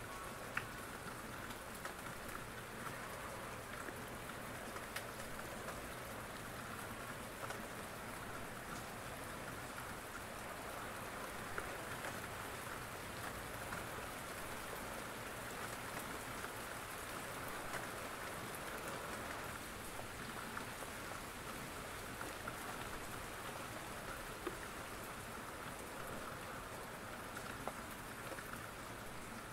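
Steady rain falling, an even hiss with a few sharp ticks scattered through it.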